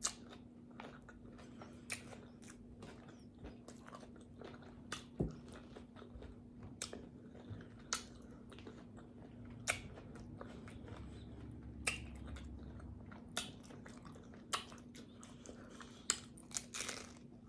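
A person chewing tacos, with sharp crunches and mouth smacks every second or two.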